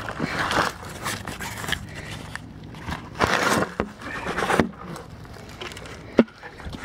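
A hand digging tool working dry orange clay soil and leaf litter: several scraping, crunching strokes, the longest and loudest about three seconds in, and a sharp knock near the end.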